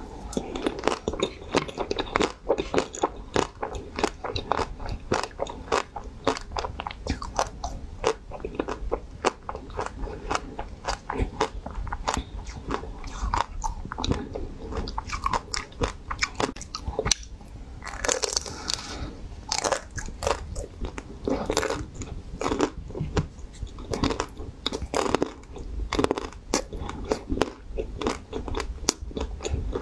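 Close-miked biting and chewing of frozen ice-cream bars: crisp crunches and sharp clicks in quick, irregular succession throughout.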